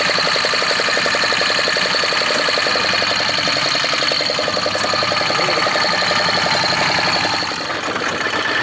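Fishing boat's engine running steadily with a fast, even chugging and a steady high whine over it.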